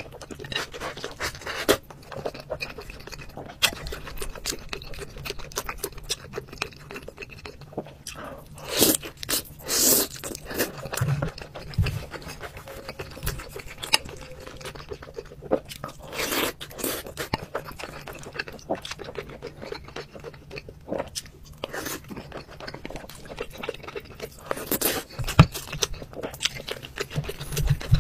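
Close-up eating sounds: chewing mouthfuls of braised pork rice, with chopsticks and a spoon clicking and scraping against the bowls, and a few louder bursts along the way.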